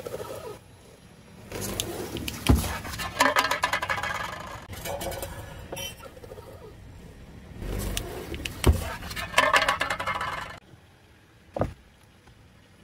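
Thin aluminium pot creaking, crackling and crumpling as a slowly rolling car tyre flattens it, in three bursts with two sharp bangs, about two and a half and nine seconds in. A single thump near the end.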